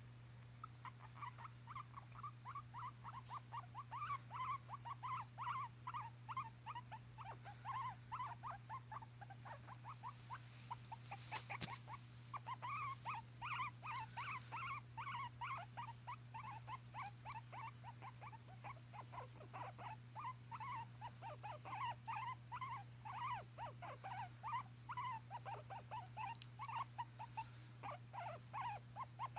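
A small pet animal making a long, fast run of short squeaky sounds, several a second, which its owner cannot identify and wonders may be sneezes. A steady low hum runs underneath.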